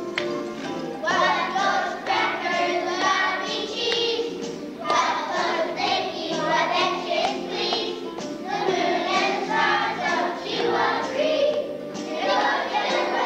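A children's choir singing a song together, with steady instrumental accompaniment underneath.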